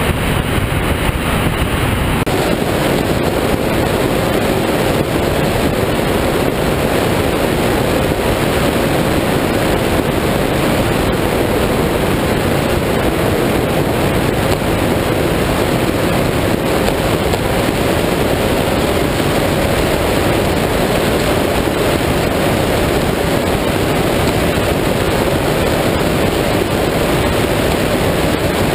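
Steady wind rush on the microphone and water noise from an offshore performance powerboat running at speed, with a faint steady engine drone underneath. The sound changes character about two seconds in.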